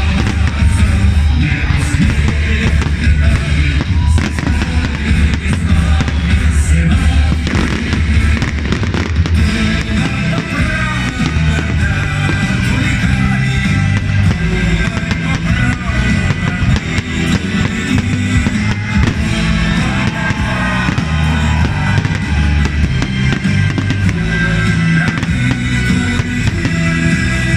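Loud music playing throughout, with the bangs of fireworks shells bursting over it at irregular intervals.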